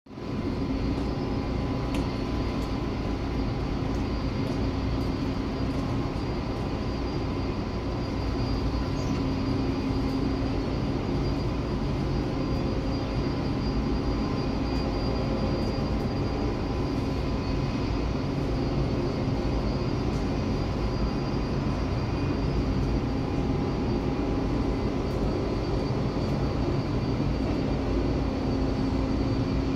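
Steady jet-turbine whine over a low rumble, holding several constant tones throughout.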